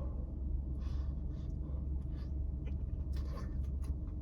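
A person chewing and taking quick breaths around a mouthful of very hot food, a string of soft crackly mouth sounds, over a steady low rumble.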